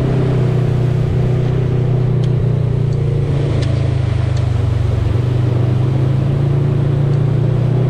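Off-road vehicle engine running steadily on a trail, with a few light rattles or clicks along the way.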